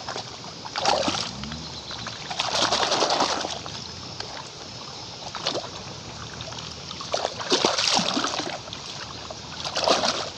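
A hand splashing and scrubbing in shallow, muddy, foamy water, in about five separate splashy bursts of up to a second each, over a steady watery hiss.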